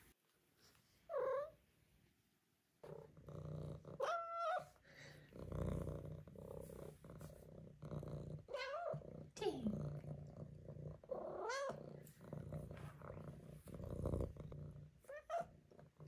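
A five-month-old Maine Coon kitten purring steadily from a few seconds in, with about six short meows and chirps over the purr. One of the calls is held, others fall or rise and fall in pitch.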